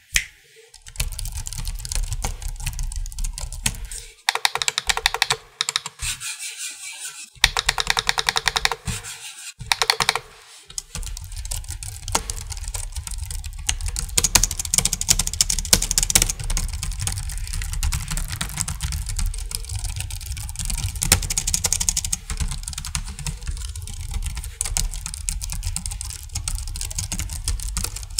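Rapid typing on the Rexus KL200, a low-profile non-mechanical wireless keyboard, its keys clicking in quick runs with brief pauses about 4, 7 and 10 seconds in.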